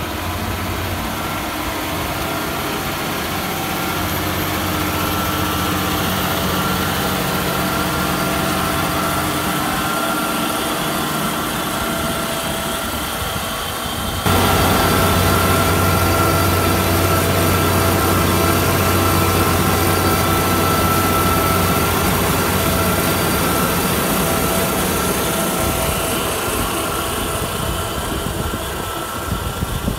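John Deere tractor on Soucy tracks running steadily while pulling a Vlaming double-net bulb planter through a field, with a continuous engine drone. About halfway through, the sound jumps louder and closer.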